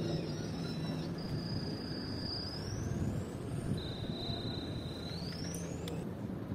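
Outdoor background noise: a steady low rumble with a faint hum, and two thin high whistling tones that each hold for about a second and then glide upward.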